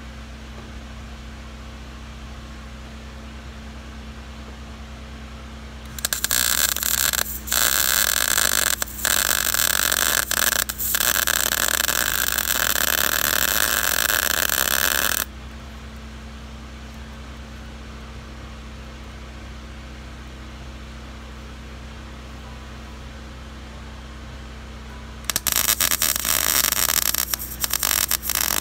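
Lincoln 140 MIG welder's arc crackling as a steel flange is welded onto a shipping container's steel roof. The arc runs for about nine seconds from about six seconds in, with three brief stops, then starts again near the end. A steady low hum sits underneath throughout.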